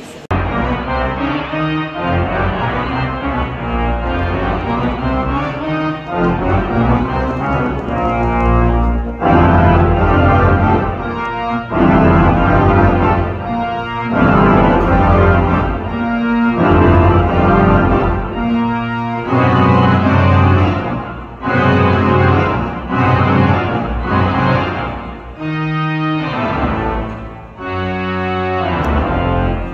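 Concert-hall pipe organ playing loud sustained chords over deep pedal bass, the chords changing every second or two.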